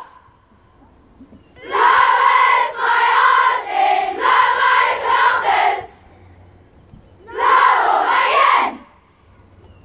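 Large group of schoolgirls chanting a school war cry in unison, high voices in loud rhythmic phrases. After a quiet start there is a run of phrases, a pause of about a second and a half, then one more phrase near the end.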